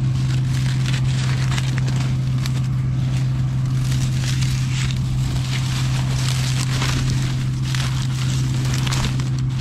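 A farm machine's engine running at a steady drone, with irregular crackling and crunching over it throughout, as of corn stalks being crushed in the field.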